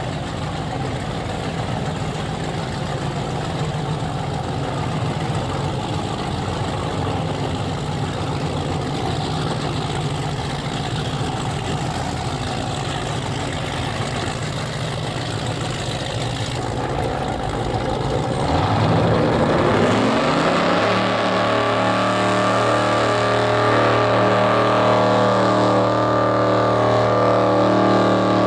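Twin engines of a 32-foot Active Thunder performance powerboat running at low speed with a rough, noisy rumble, then throttling up about eighteen seconds in: the pitch rises and settles into a steady, louder high-rpm drone.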